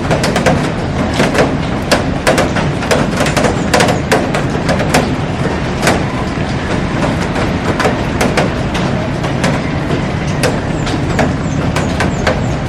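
Heavy rain falling on a glass roof and garden: a steady, dense hiss with many sharp, irregular ticks of drops striking the glass.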